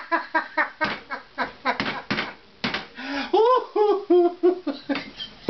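A man laughing hard at his own joke: a run of short, breathy bursts, then a few higher, voiced ha-has about three seconds in.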